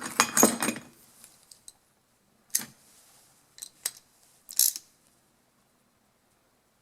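Small metal tool and parts clicking and clinking: a screwdriver snugging down a part on a Honda GX-style carburetor. A quick cluster of clicks at the start, then four separate sharp clicks over the next few seconds, with quiet gaps between.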